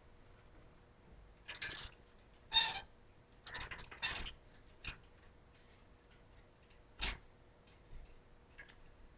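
Faint, irregular clicks and rustles of dresses on hangers being handled in a closet.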